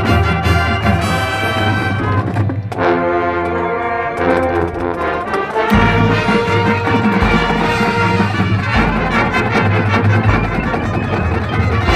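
High school marching band's brass section playing held chords. Low bass notes join about six seconds in, under a long sustained chord.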